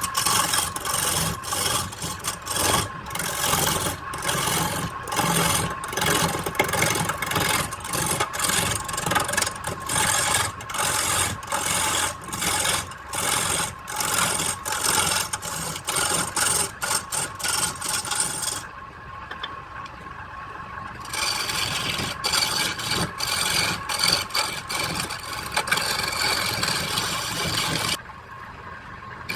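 Wood lathe running with a tool or abrasive scraping against the spinning wood in rapid repeated strokes over a steady motor hum. The scraping pauses briefly about two-thirds of the way in and again near the end.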